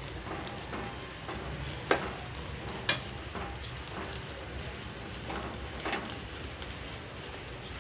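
Mint leaves, tomato and dal sizzling as they fry in a pan, with a metal spoon stirring and scraping through them and knocking sharply against the pan twice, about two and three seconds in.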